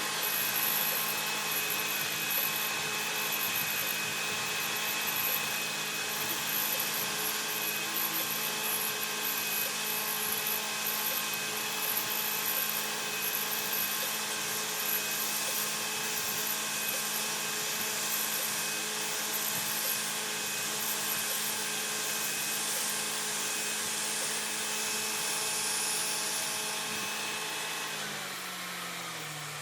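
CNC knee mill running a hole program: a steady motor hum and whine with high hiss from the spindle and drives. About two seconds before the end, the tones slide down in pitch and fade as the spindle spins down at the end of the cycle.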